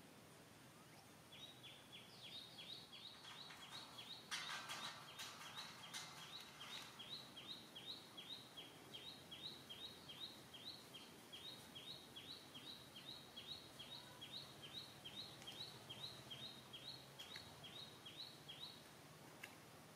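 A bird calling a faint, rapid, repeated high chirp, about three calls a second, that stops shortly before the end. A burst of rustling noise, the loudest part, overlaps it from about four to seven seconds in.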